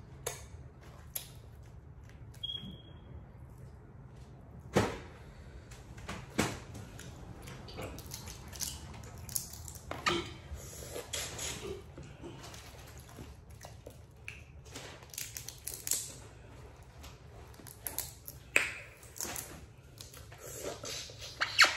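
Boiled crawfish being peeled and eaten up close: scattered sharp cracks and clicks of shells broken apart by hand, with wet chewing and finger-licking sounds between them.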